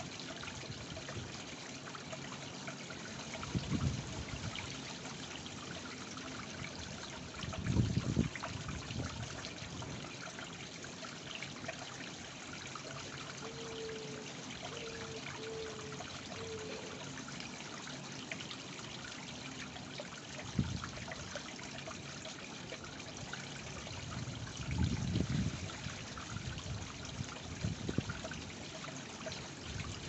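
Small rock cascade of a garden koi pond, water trickling steadily down the stones into the pond. A few brief low rumbles come through, the loudest about eight seconds in.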